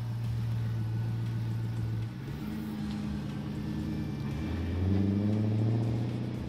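FPV Ford Falcon ute's engine pulling away and driving off, its note rising and shifting in pitch about two seconds in and again about four and a half seconds in, loudest near the end.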